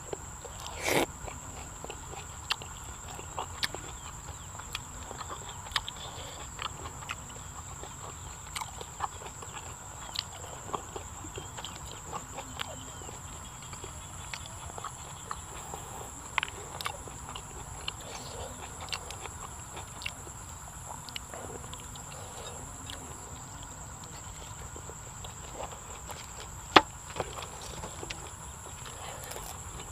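Close-miked eating sounds: wet chewing and lip smacks of a mouthful of raw beef laap, with scattered sharp clicks from the spoon and the food, over a steady high-pitched whine.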